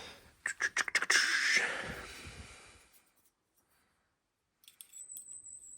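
Sharp metallic clicks and a rattling rustle in the first couple of seconds, then faint ticks near the end. This is a bicycle chain being handled while a chain wear checker is fitted into its links to measure stretch.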